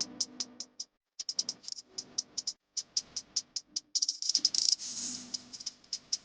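Background music with a fast, rattling percussion beat of sharp high clicks over low sustained notes.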